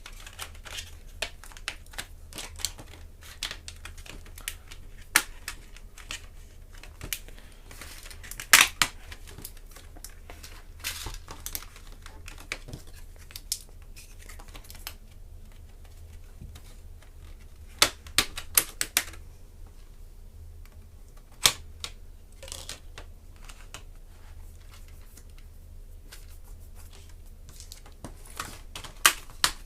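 Plastic snap-latches of a ThinkPad E450's LCD bezel clicking and cracking as a credit card pries the bezel free. The clicks are irregular, with louder snaps about 9 seconds in, a cluster around 18 seconds, and another near 21 seconds, over a steady low hum.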